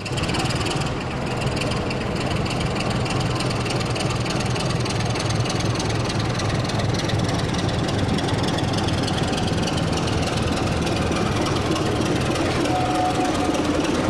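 Sound decoder in a model BR Class 24 diesel locomotive playing a diesel engine running steadily as the model pulls out of the engine shed.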